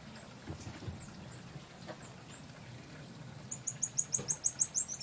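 Common marmosets calling: three long, high, whistled phee calls about a second apart, then near the end a fast run of about ten short chirps, a twitter, at roughly seven a second.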